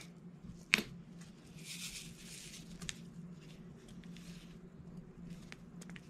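Small clicks and light rustling of diamond-painting work, a drill pen tapping resin diamonds onto the adhesive canvas: one sharp click under a second in, a few fainter ticks later and two soft rustles, over a faint steady low hum.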